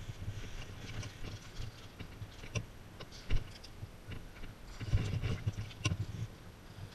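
Irregular footsteps and handling knocks of a player's gear and gun-mounted camera, with scattered sharp clicks and one loud knock about three seconds in.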